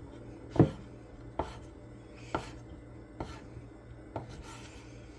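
Chef's knife chopping through mozzarella cheese sticks and knocking on a wooden cutting board: five sharp strikes about one a second, the first the loudest.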